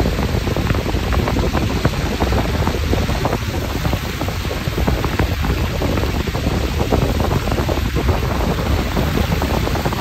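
Car tyres running through snow and slush on a wet road: a steady rush of noise with a low rumble underneath and a fine spatter through it.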